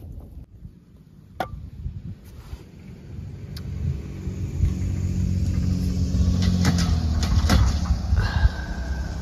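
A car engine running nearby: a low rumble that builds from about three seconds in and then holds steady, with a few light clicks over it.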